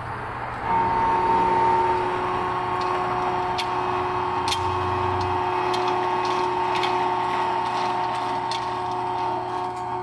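Peterson swing-blade sawmill's electric drive motor starting up about a second in and then running steadily with a whine of several steady tones, the missing phase in its wiring now restored. Faint scattered ticks sound over it.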